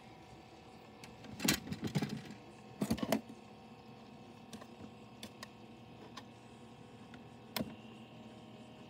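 Small electric motor of a rotating disco light whirring steadily, broken by two bursts of clattering knocks about a second and a half and three seconds in, and one sharp click near the end.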